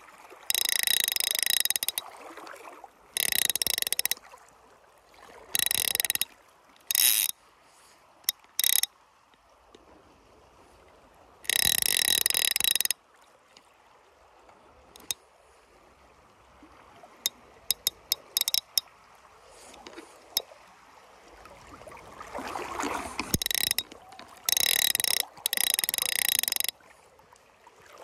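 Fly reel's click-and-pawl drag buzzing in repeated bursts as line is pulled off the spool. The bursts come in runs from a fraction of a second to nearly two seconds long, with a long quiet stretch in the middle.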